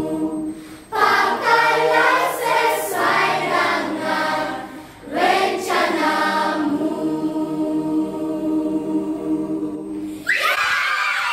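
Children's choir singing in Malay without accompaniment, the phrases breaking briefly about a second in and again about five seconds in. Near the end the singing cuts off and excited shouting voices take over.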